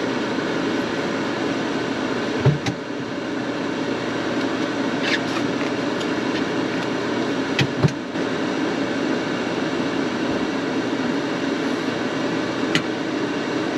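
Steady whirring of an air fryer's fan as it heats up, with a few light knocks and clicks of food and utensils being handled.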